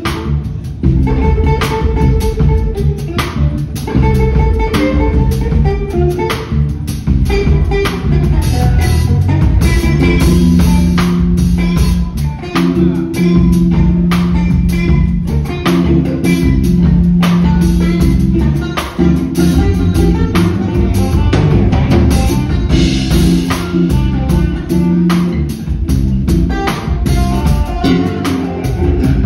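Live band music from three electric basses played together, with plucked bass lines and higher melodic notes over a drum kit keeping a steady beat.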